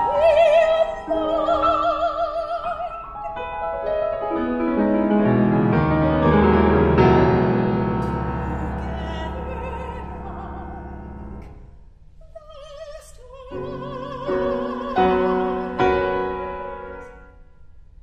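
Classical soprano singing with a wide vibrato over piano, then a long piano passage that swells with deep bass chords and dies away, after which the soprano comes back over repeated piano chords and the music fades near the end.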